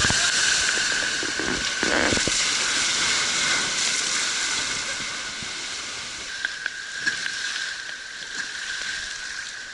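River water rushing and sloshing around a raft, loudest at first and easing off over the following seconds.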